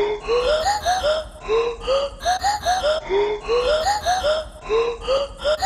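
Intro music built from a looping pattern of short pitched vocal-like chops, each note bending upward, the pattern repeating about every second and a half.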